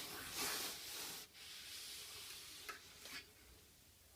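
Hands rubbing and pressing on EVA foam matting in a tool box drawer: a scuffing sound for about a second and a half that stops abruptly, then softer rubbing with a couple of light clicks.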